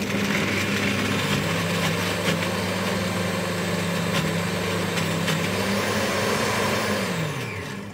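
Electric blender motor running at speed while blending chickpeas into hummus, a steady whirring hum. Near the end it is switched off and the motor winds down, its pitch falling.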